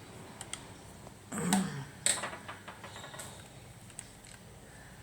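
Scattered light clicks and small handling knocks from an electrical plug being worked by hand, the sharpest about two seconds in, with a brief voiced murmur about one and a half seconds in.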